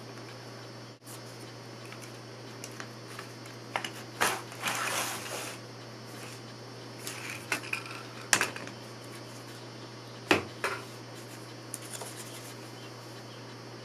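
Pieces of a wooden adjustable mold frame being pulled away from a clay tray and set down on a plywood board: a handful of sharp knocks and clatters, with a short scraping rub about four seconds in. A steady low hum runs underneath.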